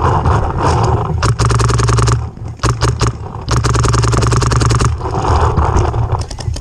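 Paintball markers firing in fast strings of pops, over a steady rumble and scraping movement noise from the player's mask-mounted camera.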